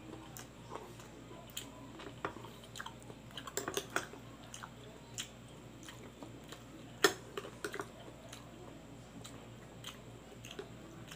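Metal spoon clinking and scraping, with wet dripping and squishing as a vinegar-and-chili dressing is spooned over pig intestines; scattered light clicks, the sharpest about seven seconds in.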